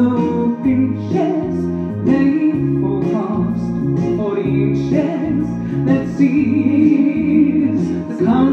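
A woman singing a song over instrumental backing music, with held notes over a steady bass line.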